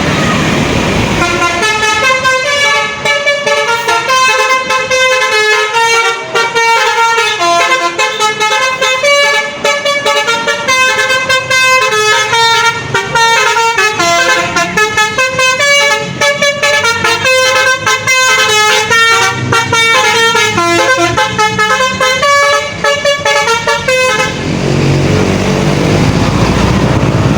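A tour bus's Basuri telolet horn, a multi-tone musical horn, plays a long melody of short stepping notes. It stops about three seconds before the end, leaving a low rumble.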